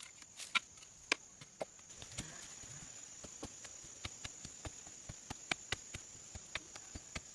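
A series of sharp, irregular knocks, about two or three a second, over a steady high insect drone.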